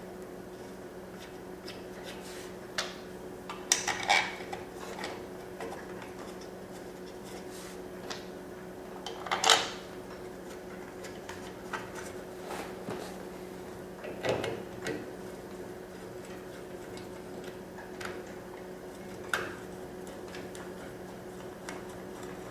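Scattered clinks and knocks of small metal parts and tools being handled while the cover is fitted back onto a forced-air heater's air pump housing. The loudest comes nearly ten seconds in. A steady low hum runs underneath.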